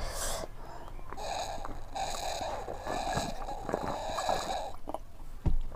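A person breathing heavily through the mouth, three or four long breathy breaths in a row.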